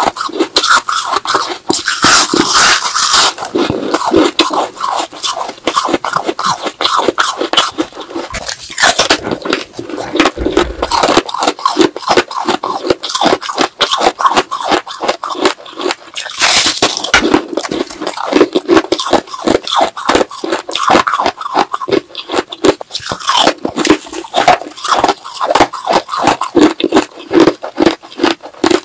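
Close-miked teeth crunching and chewing frosty balloon ice: a dense, rapid crackle of crunches with a few louder bites.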